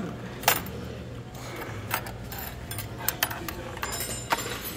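Eating utensils clinking against ceramic bowls: a handful of sharp, separate clinks, the loudest about half a second in and a quick pair a little past three seconds, over a low steady hum.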